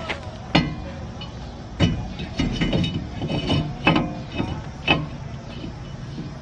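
Steel hand tools and hardware knocking and clinking, about four or five separate sharp metal knocks with brief ringing, while a washer and lug nut are fitted on a new wheel stud to draw it into the hub.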